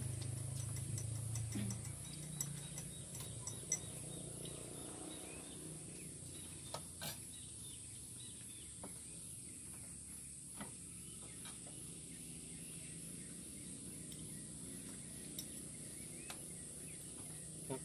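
Quiet outdoor background with a faint low hum that fades out about two seconds in, then a few scattered small clicks and taps.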